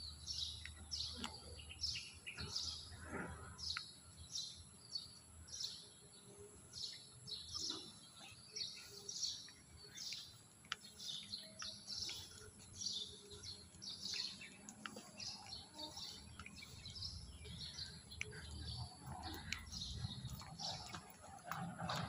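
Birds chirping in the trees, a steady run of short, high calls at about two a second.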